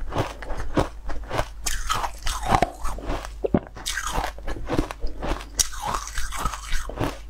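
Close-miked crunching and chewing of a mouthful of frozen sweet ice, with sharp irregular cracks several times a second as the ice breaks between the teeth.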